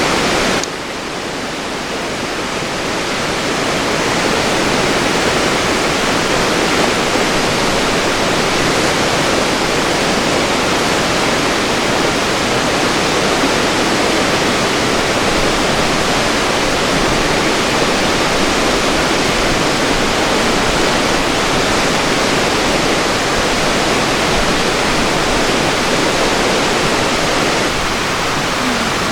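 River water rushing steadily, an even, unbroken wash that swells in over the first few seconds.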